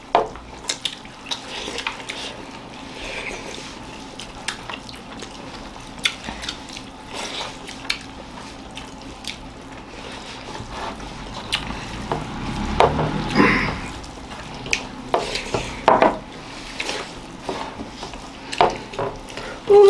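Wet squelching and irregular clicking of fingers mixing rice with dal and curry on steel plates, along with chewing, busiest about two-thirds of the way through.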